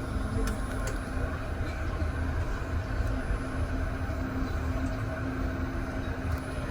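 Electric REM light-metro train running, heard from inside the car: a steady low rumble with a steady motor hum over it.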